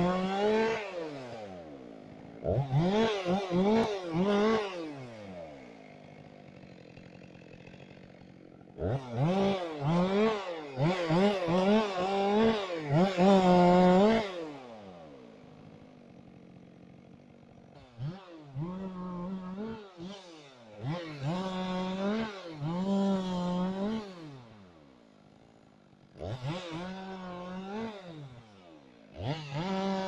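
Two-stroke chainsaw revving to full speed in a string of cutting bursts and dropping back to idle between them, as branches are cut off a felled conifer. The longest, loudest run comes in the middle.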